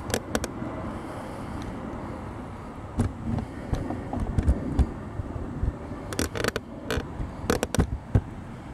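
Steady low rumble of road traffic and outdoor air, broken by scattered clicks and low thumps, with a cluster of them about six to eight seconds in.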